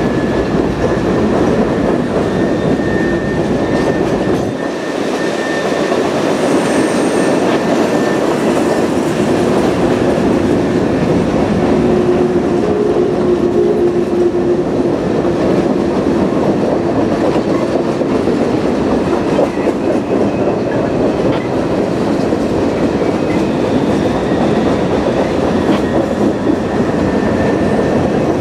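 Two freight trains' cars rolling past side by side on two tracks, a steady rumble of steel wheels on rail. Thin, faint wheel squeals come and go.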